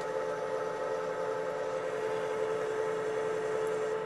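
Leblond engine lathe running steadily during a turning pass on 4140 pre-hard steel with a carbide insert tool. It makes an even mechanical hum with a steady tone.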